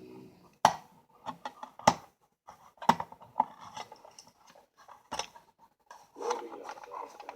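Small parts of a toy train locomotive being handled and fitted together by hand: a series of separate sharp clicks and taps with light rubbing between them.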